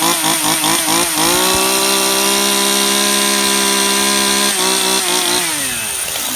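Stihl MS 181 C two-stroke chainsaw engine revved: about five quick throttle blips in the first second, then held at high revs for a few seconds with a brief dip, then the revs sliding back down toward idle near the end.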